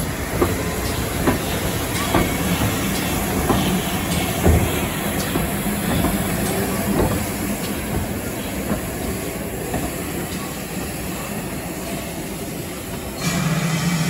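GWR Hall-class steam locomotive No. 4953 moving slowly past at close range, its wheels clicking irregularly over the rail joints. Near the end a louder, steady low rumble sets in.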